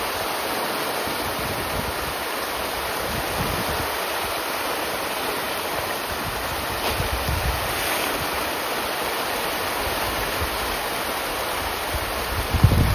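A large school of farmed fish thrashing and splashing at the pond surface in a feeding frenzy: a steady, dense rush of churning water. Low gusts of wind on the microphone come and go, the strongest a little before the end.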